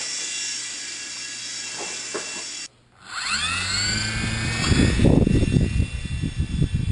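Blade MCX micro coaxial RC helicopter's small electric motors and rotors whining steadily. After a sudden cut about two and a half seconds in, the whine rises as the rotors spin up and then levels off, joined by a loud low fluttering near the end.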